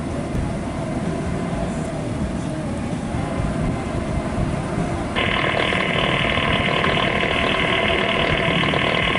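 Low, steady rumble of idling cars and road traffic at a railroad grade crossing. About five seconds in, the crossing's warning bell starts ringing.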